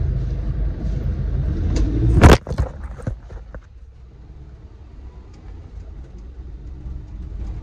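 Low rumble of a car interior, with one loud knock about two seconds in and a few lighter clicks just after as the phone filming is handled; the rumble is quieter after that.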